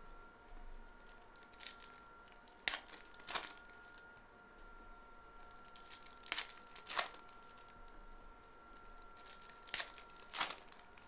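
Foil wrappers of football trading-card packs crinkled and torn open by hand, with sharp crackles coming in close pairs three times.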